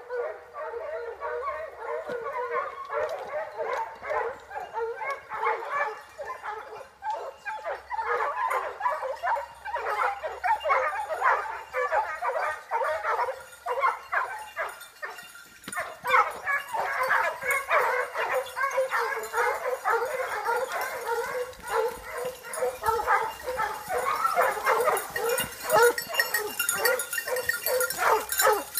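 A pack of hunting hounds giving tongue: many dogs baying and yelping at once, their cries overlapping almost without a break, with a short lull about halfway through before they come on louder. Hounds cry like this in full cry, following the scent of game.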